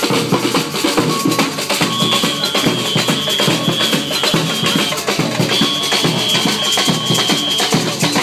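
Samba percussion band (batucada) playing a dense, driving groove on surdo bass drums, snare drums and small hand drums. Two long, high held notes sound over the drumming partway through.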